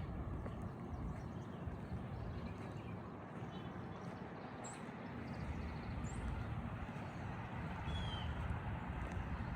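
A few short, high bird chirps and one brief sliding call about eight seconds in, over a steady low rumble of outdoor noise.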